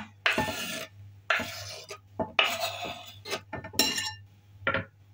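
Cutlery clinking and scraping against dishes in about five separate strokes, a few of them drawn out like a spoon scraping a container.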